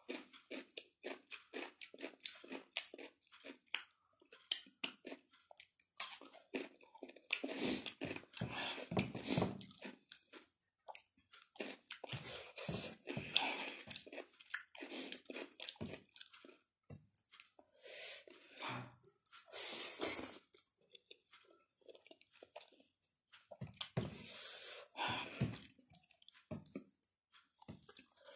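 Close-up eating sounds: chewing of crunchy cucumber slices and instant noodles, with wet mouth sounds in short, irregular bursts.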